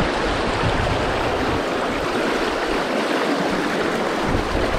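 River current rushing steadily, a constant even noise of flowing water.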